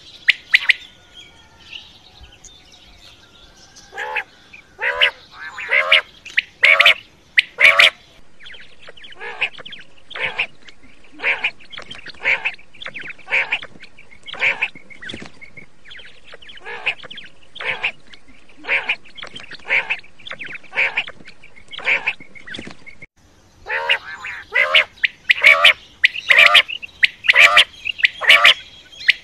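Quail (batair) calling over and over in short, sharp calls. The calls come in loud clusters near the start and the end; in between they are evenly spaced, about one every 0.7 s. The recording is spliced, so the background hiss changes abruptly twice.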